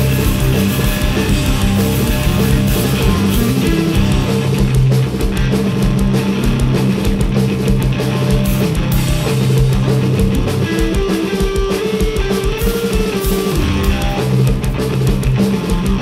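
Heavy rock played live by a guitar-and-drums duo: loud amplified electric guitar riffing over a full drum kit, with cymbals hit continuously.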